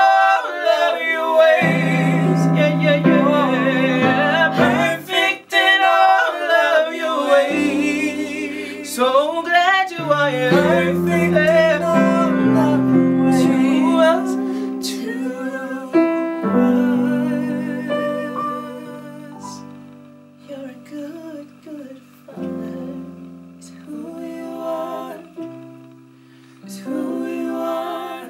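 A woman singing a slow worship song with vibrato, accompanying herself on a Yamaha electric keyboard playing held chords. The music grows softer about two-thirds of the way through.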